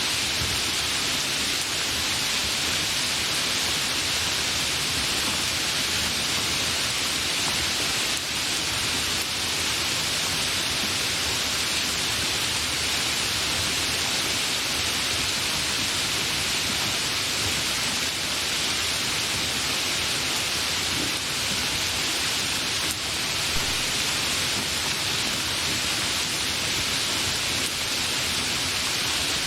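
Steady rain, an even hiss that holds unchanged throughout.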